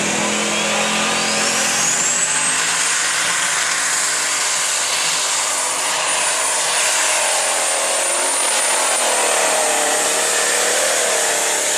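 Open Super Stock pulling tractor's turbocharged diesel engine running at full power as it pulls a weight-transfer sled, with a high turbo whine that rises over the first two seconds and then holds.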